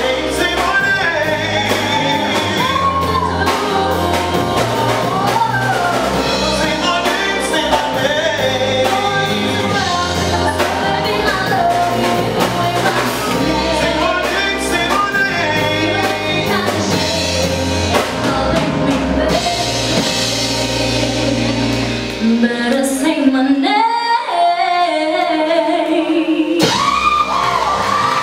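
Live band playing a song: a woman sings lead over electric bass, keyboard and drum kit. A little over 20 seconds in, the bass and drums drop away, leaving the voice over lighter backing, and the low end partly comes back just before the end.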